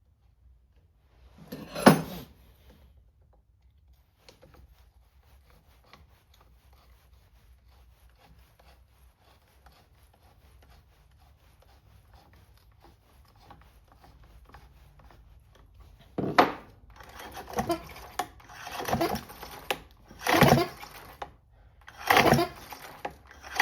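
Homelite C5 chainsaw's recoil starter pulled over with a rough, rasping scrape: one pull about two seconds in, then a run of pulls every second or two from about two-thirds of the way through. The starter is in poor shape and probably needs a rebuild.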